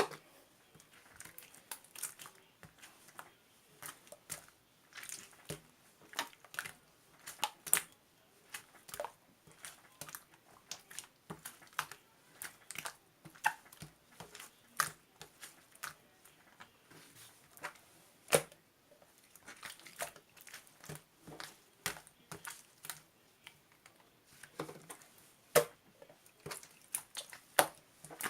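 Irregular sharp clicks and taps, roughly one to three a second and uneven in loudness, with no steady sound behind them.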